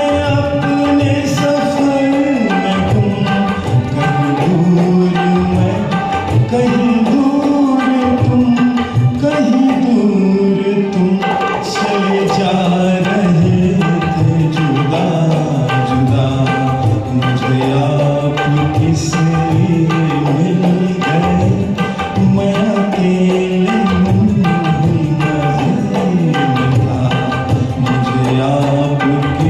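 Hindi film song music carried by a tabla rhythm under a gliding melody line, at a steady loud level.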